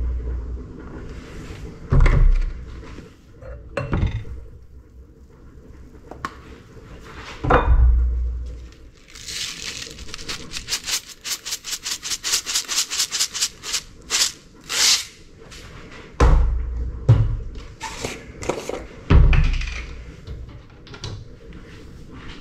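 A bottle of ground cinnamon is shaken over a bowl: a fast, even run of rattling taps, several a second, that lasts about five seconds mid-way. Before and after come a few dull thumps as containers are handled and set down.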